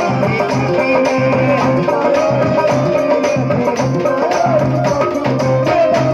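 Instrumental interlude of Indian folk devotional music: a rope-tuned barrel drum beats a steady rhythm under a long, held melody line that bends in pitch about four seconds in.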